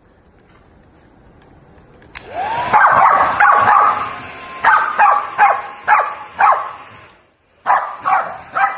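A hair dryer clicks on about two seconds in and blows steadily while a corgi facing it howls with a rising note, then barks in a quick run of five. Everything cuts out for a moment late on, then the dryer noise and three more barks come back.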